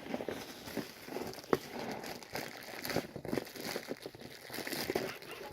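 Irregular crinkling and clicking as toy boxes and plastic packaging are handled.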